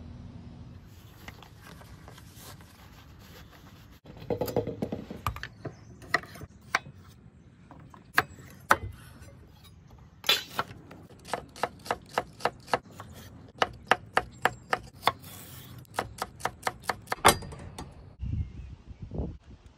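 A chef's knife chopping on a wooden butcher-block board, dicing pickles and red onion: runs of quick, sharp chops at about three or four a second through the middle and later part, with softer knocks and handling sounds between.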